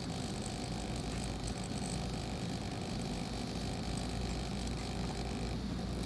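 SG90 micro servos of a pan/tilt gimbal buzzing and whirring steadily as they drive it at the lowest speed setting. Some of the higher tones cut off near the end.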